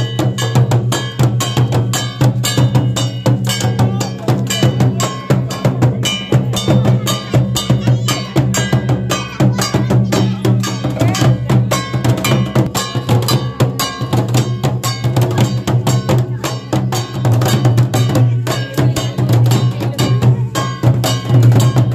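Santali folk drumming for dong dancing: a large strap-laced kettle drum (tamak') and a barrel drum beaten with sticks in a fast, even rhythm, with a deep drum resonance under dense sharp strokes.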